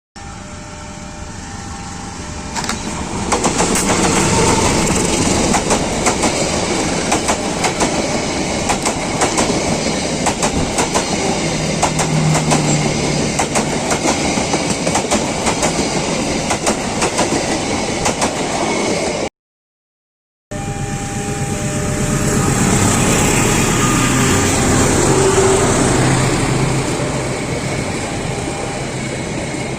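Trains passing at speed, the wheels clattering over the rail joints with a dense run of clicks and a steady rush. About two-thirds of the way through the sound cuts out for a second and another passing train follows.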